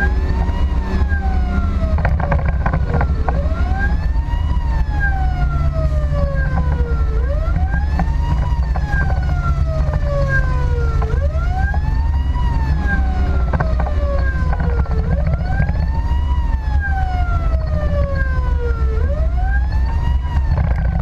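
Emergency vehicle siren on wail, its pitch rising quickly and then falling slowly, repeating about every four seconds, over a steady low rumble of engine and road noise.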